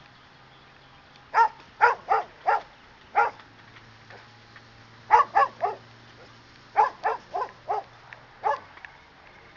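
A poodle barking in quick clusters of two to four sharp barks, about a dozen in all, starting a little over a second in. These are guard barks at a decoy holding a bite sleeve, during protection training.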